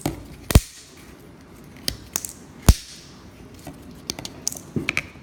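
Speaker mounting clips being bent and snapped off by hand: two sharp snaps, about half a second in and near the middle, with smaller clicks and taps in between.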